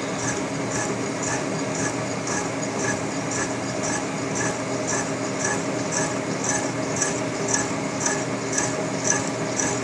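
Boring mill's boring bar turning with its cutter carving through weld metal in a Cat 375 excavator H-link bore. A steady machine hum runs under a regular scraping pulse about one and a half times a second.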